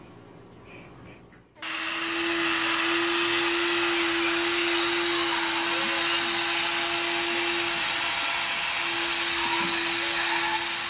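A steady whirring motor noise with a constant hum, starting suddenly about a second and a half in; the hum drops out for about a second near the eight-second mark.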